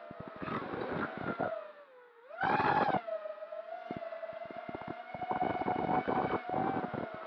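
5-inch FPV quadcopter's brushless motors and propellers whining, heard through its onboard camera, with gusts of wind crackling on the microphone. About two seconds in, the whine sags in pitch as the throttle eases off. It then jumps up in a short, loud burst of throttle before settling back to a steady whine.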